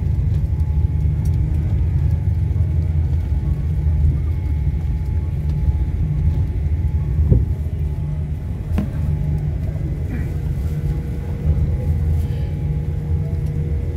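Jet airliner cabin noise while taxiing: a steady low rumble from the engines and rolling gear, with a faint steady whine over it and a light knock about halfway through.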